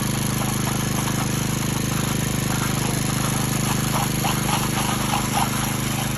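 Concrete power trowel ("helicopter") engine running steadily while it finishes the surface.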